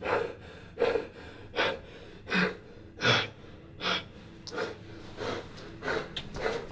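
A man breathing hard and fast through his open mouth, rapid gasping breaths about one every three quarters of a second, starting suddenly out of silence.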